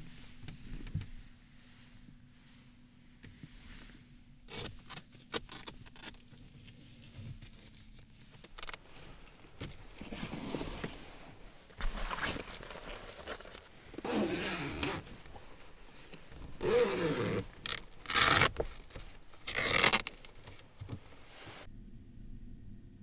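A zipper being pulled in several quick rasping strokes, with cloth rustling, after a few light clicks.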